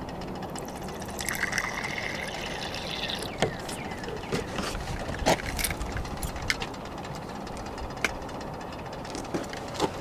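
Rainwater poured from a plastic jug into a plastic measuring cup, a splashing fill lasting about two seconds. Several sharp knocks and clicks follow as the container and cup are handled, the loudest about halfway through.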